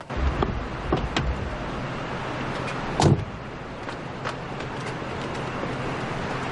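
A car's engine running steadily, with several short clicks and knocks and one heavier thump about three seconds in.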